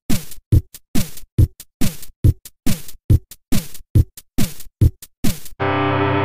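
Electronic drum-machine beat: a kick drum with a falling-pitch thump repeating a little over twice a second, with lighter hits between. About five and a half seconds in it gives way to a sustained, distorted electric guitar chord.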